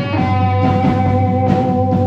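Rock music in a passage with no singing: electric guitar holds two long notes over a steady bass note, with light drum hits.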